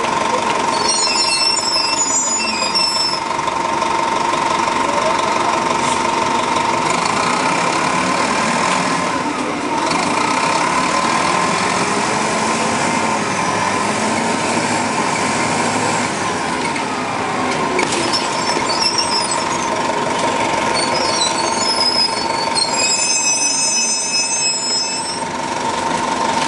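1996 Nova RTS city bus's Detroit Diesel Series 50 four-cylinder diesel heard from on board, pulling and easing off so its pitch rises and falls several times as the Allison automatic transmission works through the gears, with a steady high whine throughout.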